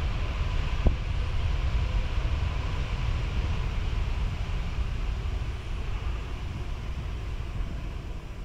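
Boeing 747-8F's four GEnx turbofan engines running at low taxi thrust: a steady jet rumble and hiss that eases slightly toward the end.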